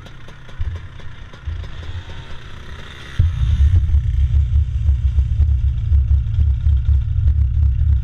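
Go-kart engine starting about three seconds in, then running with a loud, low pulsing, after a few short surges.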